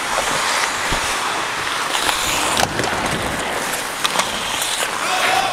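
Hockey skate blades scraping and gliding on rink ice as the skater wearing the camera moves, a steady hiss, with wind rushing over the microphone. A few sharp clacks stand out, typical of sticks and puck on the ice.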